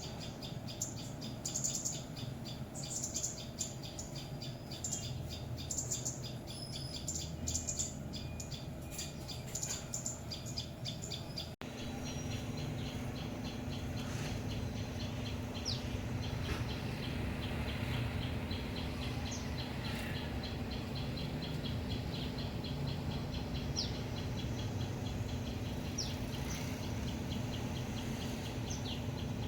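Bulbuls and tailorbirds giving rapid, repeated high chirping alarm calls as they mob a predator, with a few short rising whistle notes. The sound drops out for an instant about twelve seconds in, and the chirping goes on over a low steady hum.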